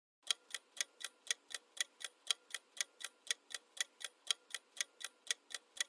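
Countdown-timer sound effect ticking like a clock, a steady run of sharp ticks at about four a second.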